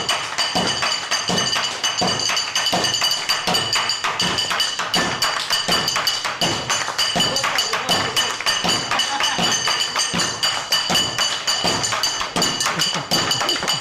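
Music with a steady percussion beat: regular low drum thumps with quicker taps between them.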